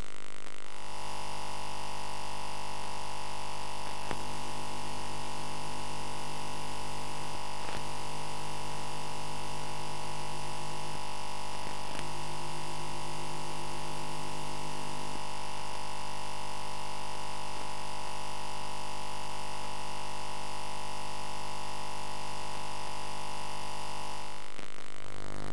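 Steady electrical mains hum made of several unchanging tones, with a prominent higher tone, and no music or speech. It cuts off near the end.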